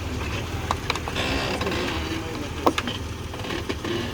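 Jeep TJ engine running low under load as the flexed-out Jeep crawls through a hole, with creaks and clicks from the body and suspension and a tire rubbing on the fender.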